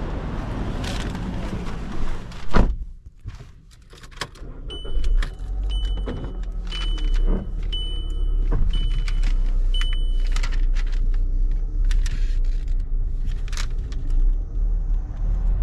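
A car door shuts with a loud knock about two and a half seconds in. Then, inside a 2015 Volkswagen Tiguan, the engine runs with a low rumble while a dashboard warning chime beeps six times, about once a second, among scattered clicks.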